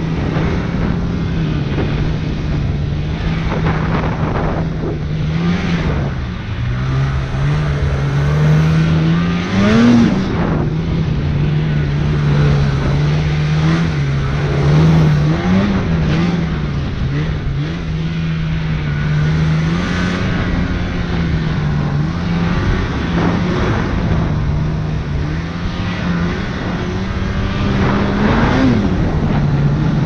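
Polaris 850 Pro RMK snowmobile's two-stroke twin engine running under way, its drone dipping and swelling with the throttle, with brief rises in pitch about ten seconds in and near the end.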